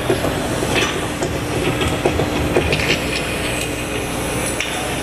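Arena concert crowd, a steady wash of crowd noise and cheering with scattered sharp clicks and a faint steady low tone under it.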